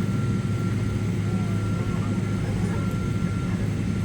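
Steady low rumble of a jet airliner's engines and airflow heard inside the passenger cabin, with a faint steady high whine.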